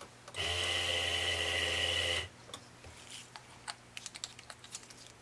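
Perio Star electric sharpener's motor running briefly with a steady hum, spinning its freshly lubricated stone; it starts about half a second in and stops after about two seconds, followed by a few light clicks.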